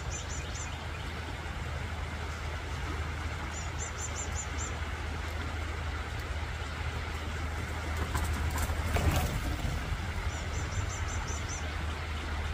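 Steady rush of flowing creek water, with a small bird singing a quick run of five or six high, chirping notes three times. A brief louder burst of rustling noise comes about two-thirds of the way through.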